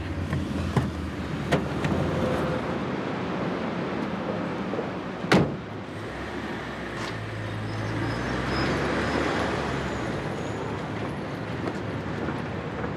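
Street traffic noise with a car running, a few light clicks near the start, then a car door shut hard about five seconds in.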